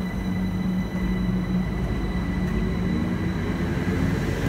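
Class 379 Electrostar electric multiple unit moving off, with a steady rumble and a constant high-pitched tone. From about three seconds in, its traction motors add a whine that climbs in pitch in steps as the train gathers speed.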